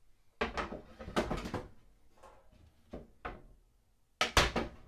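Stovetop cover on an RV's three-burner propane range being lifted and set back behind the burners: a run of knocks and clatters, lighter in the middle, with the loudest cluster near the end.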